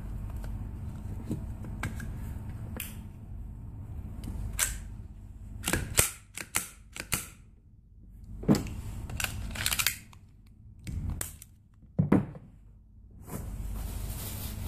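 Walther P22 pistol parts being handled and fitted together: a run of sharp clicks and clacks, loudest about six, eight and a half and twelve seconds in, over a steady low hum.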